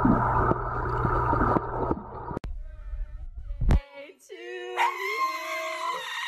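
Background music for the first two seconds. After a cut, a dog howls in long pitched tones that hold, glide and waver through the last two seconds.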